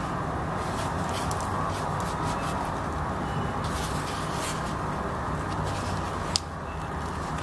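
Crusty baked yeast bread crackling in irregular small crackles as hands squeeze and start to tear a loaf, over a steady low hiss. A sharp crack comes about six seconds in.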